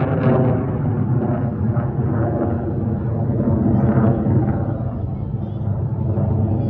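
F-16 fighter jet flying overhead: a loud, continuous jet-engine rumble.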